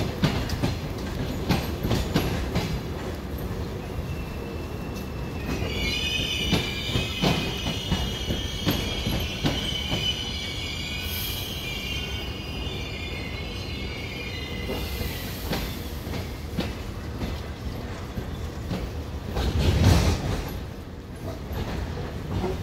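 An EP1M electric locomotive and its passenger coaches rolling slowly into a station, with a steady rumble and wheels clicking over rail joints. A long, high-pitched squeal of several tones runs for about ten seconds as the train brakes. A loud thump comes near the end.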